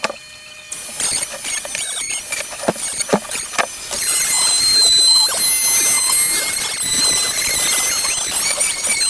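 Palm router with a quarter-inch round-over bit running at a high-pitched whine while it rounds over the edge of a timber board. It comes in about a second in, uneven with short knocks at first, then holds a steady whine through the second half.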